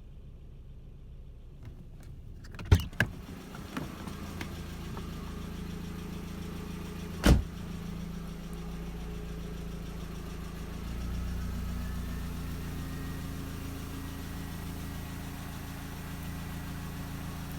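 Volkswagen Jetta MK4's 1.8T turbocharged four-cylinder engine idling steadily on its first run after a cylinder head and head gasket replacement. A few sharp knocks come about three seconds in and one loud knock about seven seconds in.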